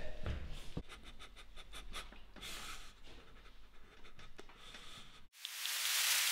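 Faint rustling and scattered light clicks, then about five seconds in the room sound cuts off and a soft rushing hiss swells up and begins to fade.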